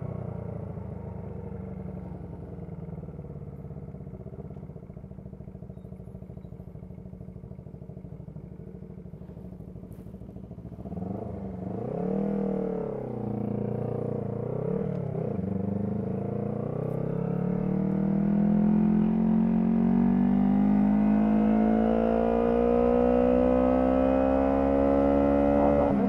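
Honda CB125T's 125 cc parallel-twin engine heard while riding. The engine note sinks as the bike slows, rises and falls a few times around the middle, then climbs steadily and grows louder as the bike accelerates near the end.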